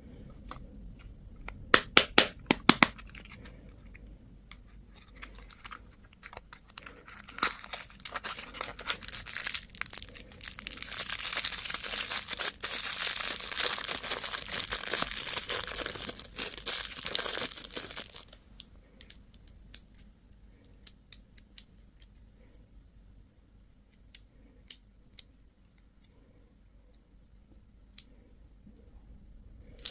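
Candy wrapper being handled and torn open: a few sharp clicks about two seconds in, then a dense stretch of crinkling and tearing from about ten to eighteen seconds, followed by scattered light clicks.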